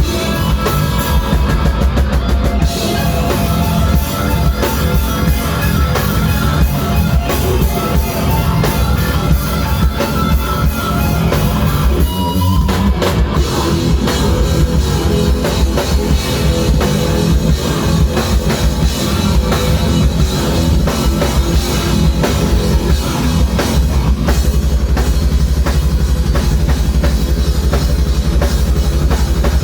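Loud rock music with drum kit and distorted guitar, playing at a steady pace with a brief break about twelve seconds in.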